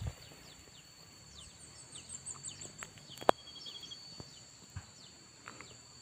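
Small birds chirping, quick short high calls for a couple of seconds, over a steady high-pitched insect buzz; a single sharp click about three seconds in.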